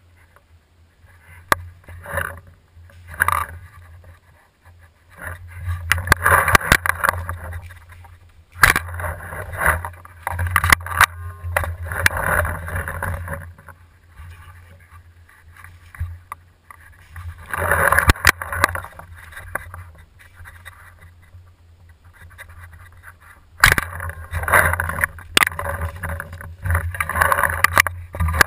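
Rustling and rubbing handling noise from a camera mounted on a paintball bow as it is moved about, over a steady low hum, with several sharp clicks or pops scattered through.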